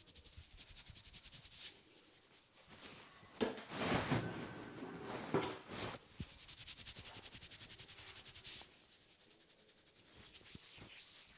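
Rapid rhythmic rubbing on the hair and scalp during a head massage, about five strokes a second, louder and fuller for a couple of seconds in the middle.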